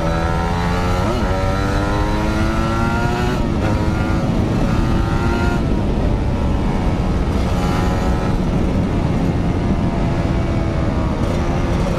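Motorcycle engine under way, its pitch climbing as it accelerates and dropping back sharply twice, about three and a half and five and a half seconds in, as it shifts up a gear. Wind rumbles on the microphone underneath.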